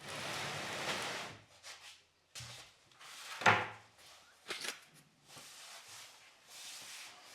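Wardrobe parts being handled: a long rub or slide, then scattered scrapes and a single sharp knock about three and a half seconds in.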